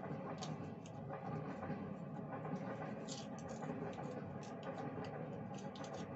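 Light, irregular clicks and taps of small objects being handled, over a steady low background hum.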